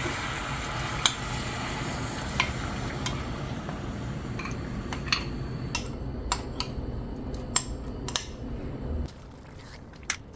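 Marinated chicken sizzling in hot oil and ghee in a kadai while it is stirred, the utensil clinking sharply against the pan about eight times. The sizzle drops away about a second before the end.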